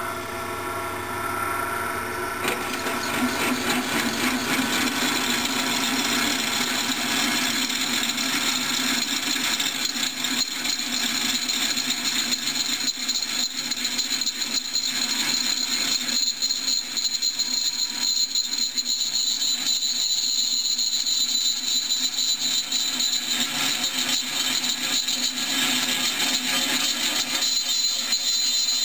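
Craftsman 100 belt-driven drill press running with a twist bit cutting into a steel bar: a steady motor hum with a high cutting whine and chip-scraping hiss, louder from about two seconds in.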